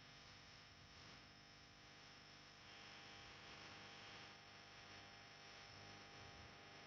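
Near silence: a faint steady hiss and low hum, with no distinct sound.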